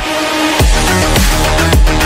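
Electronic background music, drum and bass, with a heavy regular beat that comes in about half a second in.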